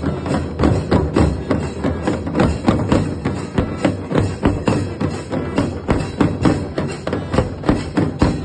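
Loud rhythmic drumming with a quick, steady beat of repeated hand-drum strokes.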